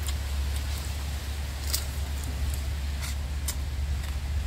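A person chewing raw crab: a scattering of short, sharp crunches and clicks over a steady low rumble.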